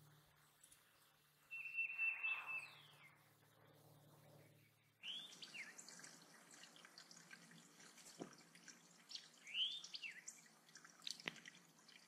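Wild birds calling, starting with one loud held whistled note that falls away at its end. Then the steady trickle and drip of water in a small stone-lined bird pond, with two short chirps and a couple of sharp drips.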